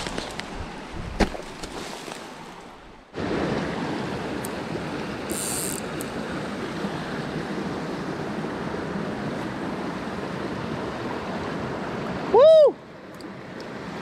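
Small mountain creek running over rocks: steady rushing water that starts abruptly about three seconds in. About twelve seconds in, a short loud cry rises and falls in pitch.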